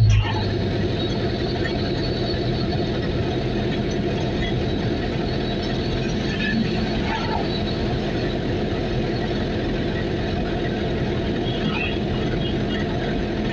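Steady engine drone and road noise of a moving vehicle heard from inside it, with a brief thump right at the start.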